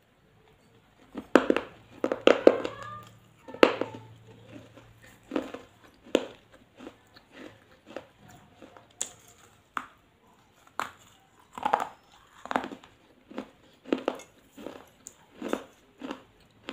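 A person biting and chewing crunchy food right at a clip-on microphone, with short crisp crunches about once a second, loudest in the first few seconds.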